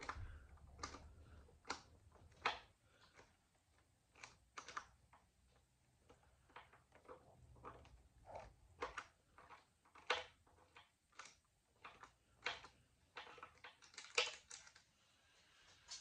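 Light, irregular metallic clicks and taps, one or two a second, as parts and fasteners on an outboard motor's open cylinder head are handled and worked loose by hand.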